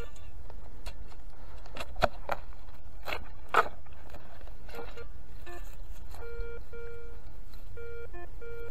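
Metal detector (a Garrett Ace 250) giving short beeps at one low, buzzy pitch, once at the start and then in a run of repeated beeps over the second half. A few sharp knocks and scrapes come in between, the loudest about three and a half seconds in.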